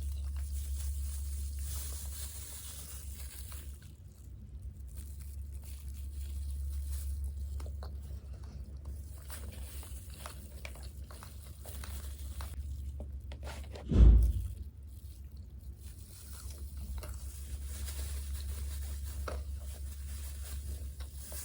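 A person eating fried chicken and fries close to the microphone: small crunches, clicks and wet mouth sounds of chewing over a steady low hum, with one loud low thump about fourteen seconds in.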